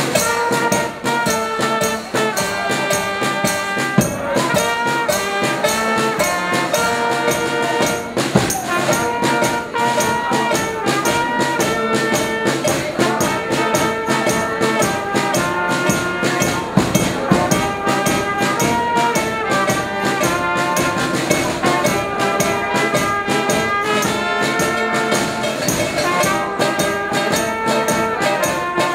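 A small carnival brass band playing a lively tune: trumpets carry the melody over a steady tambourine beat.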